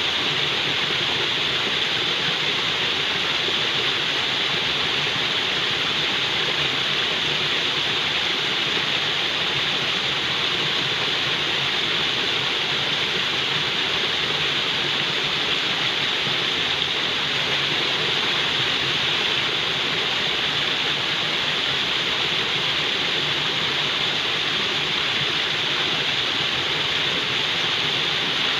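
Falling water, a steady unbroken rush with a bright hiss on top, unchanging in level throughout.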